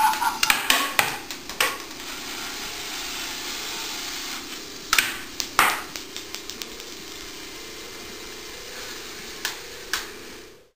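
Lego Mindstorms NXT and Power Functions motors whir steadily as the shooter robot runs, with sharp plastic clacks from its mechanism. There is a quick run of clacks in the first two seconds, two more about five seconds in, and two near the end.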